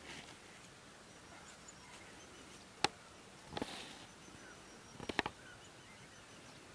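Quiet outdoor ambience with a few sharp crackles and short rustles of dry leaves under a greyhound puppy's paws: one crackle about three seconds in, a rustle just after, and a quick cluster of crackles near five seconds. Faint short bird chirps are heard behind.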